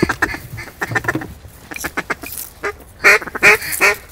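Duck quacking: runs of short quacks in quick succession, loudest near the end.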